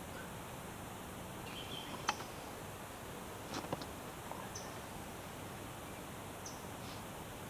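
Outdoor background hiss with a few faint, short bird chirps, and sharp clicks, one about two seconds in and a pair about three and a half seconds in.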